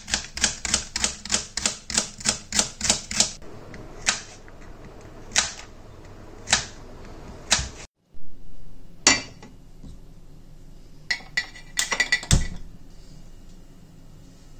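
Kitchen knife chopping an onion on a plastic cutting board: a quick run of about four strokes a second for three seconds, then four slower strokes. After a break, a few scattered knocks and clicks.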